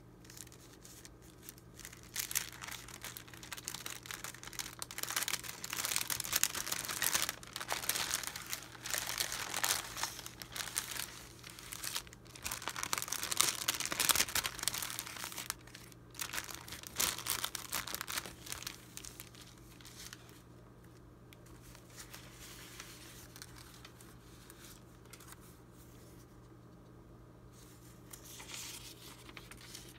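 A clear plastic sleeve crinkling and old paper documents rustling as they are handled and drawn out, in busy bursts for about twenty seconds, then only faint handling with a brief rustle near the end. A faint steady low hum runs underneath.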